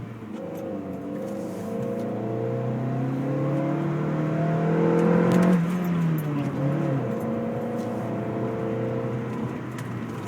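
2010 Kia Forte Koup SX's 2.4-litre four-cylinder engine revving up, its pitch rising for about five seconds, then the throttle closes abruptly and the revs fall away to a steady lower speed. At the lift-off, as the clutch goes in, comes the fluttering noise that the owner ties to the Turbokits cold air intake.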